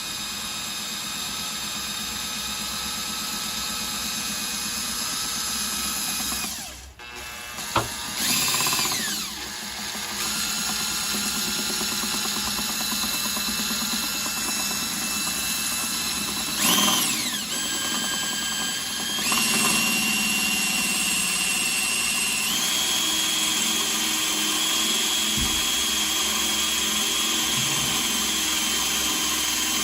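Electric drill running a bit into the car's sheet-metal body under pressure, its motor whine briefly stopping and restarting and changing speed a few times before settling into a steady run.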